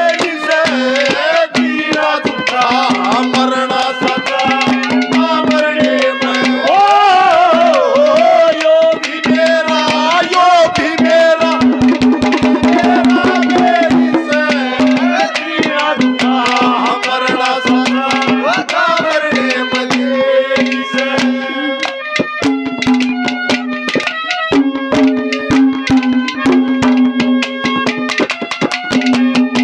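Instrumental interlude of Haryanvi ragni folk music: a hand drum keeps up a dense beat under a melody instrument whose notes bend and slide, over a steady held drone note.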